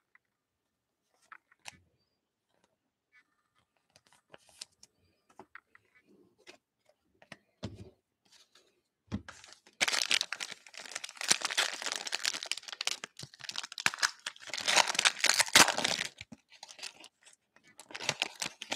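Foil trading-card pack being torn open and crinkled, loud for about six seconds from about ten seconds in and again near the end. Before that come faint scattered clicks and rustles of a card being handled with a plastic top loader.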